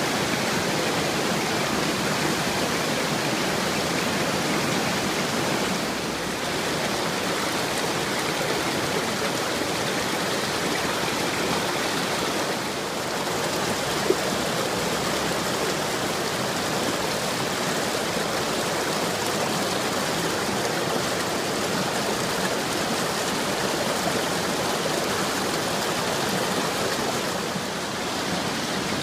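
Running water flowing steadily, an even unbroken wash of noise, with one brief click about halfway through.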